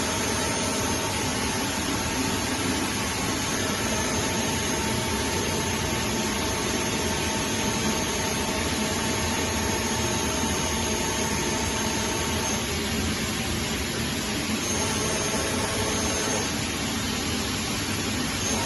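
DMG DMU 160 P milling centre running: a steady mechanical hum and hiss with thin whining tones, one of which drops out about two-thirds of the way through as others come in.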